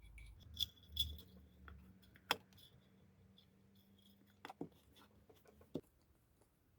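About six light, sharp clicks and taps of small Kawasaki KLR 650 carburetor parts and screws being fitted by hand during reassembly.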